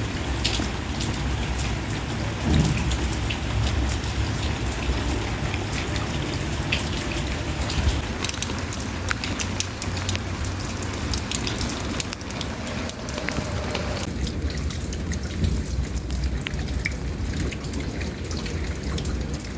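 Steady rain falling, with many scattered drops ticking on a hard surface over a low rumble.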